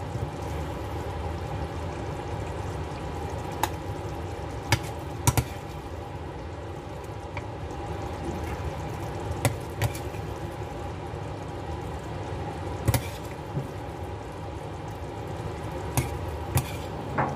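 A spoon or ladle clinking and scraping against a pot and bowl as thick chili paste is scooped out to serve. About ten sharp clinks come at irregular intervals over a steady background hiss.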